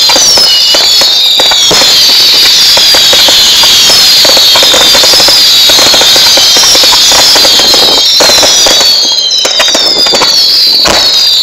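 Fireworks display going off continuously: dense crackling and popping, with many overlapping high whistles that each fall in pitch.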